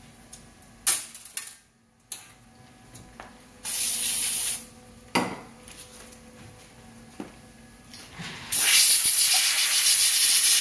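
Compressed-air blow gun hissing in two blasts to blow a small part clean: a short one of about a second around four seconds in, and a longer, louder one of about two seconds near the end. A few light knocks of parts being handled come in between.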